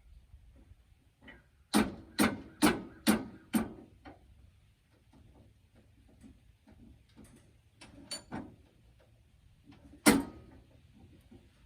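Five sharp knocks about half a second apart, then a few lighter knocks and one more loud knock near the end.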